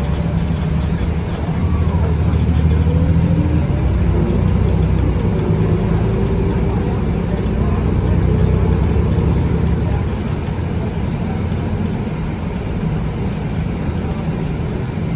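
Inside the cabin of a BCI Citirider bus, its Cummins ISB 6.7 six-cylinder diesel pulls away and accelerates, getting louder about two seconds in. A faint rising whine runs over the next few seconds, then the bus settles into a steady cruising drone.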